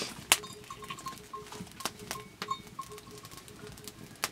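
Raw meat being sliced by drawing it across a large knife blade held fixed edge-up: irregular sharp, wet clicks and taps. A faint short note repeats rapidly underneath.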